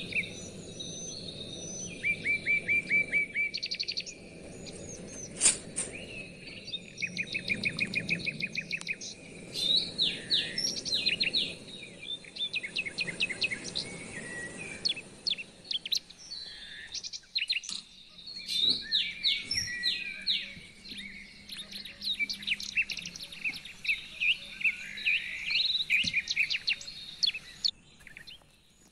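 Birds singing, with quick chirps and rapid trilled runs of notes that keep coming in close succession.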